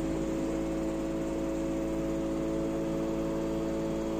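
LG F4DV509S0E washer-dryer with its top panel off, spinning its empty drum at high speed, about 1200 rpm: a steady, quiet hum with a few held tones. The drum is well balanced and leveled, running without knocking against the cabinet walls.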